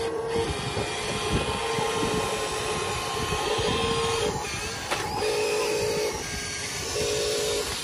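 Small electric motors of Huina RC construction trucks whining in on-off spells of about a second, some of them pulsing, as the dump truck's tipper bed comes down and the toy trucks drive.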